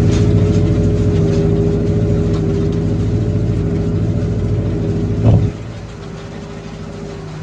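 A tractor engine running steadily. About five seconds in there is a short loud knock, and after it the engine sounds quieter.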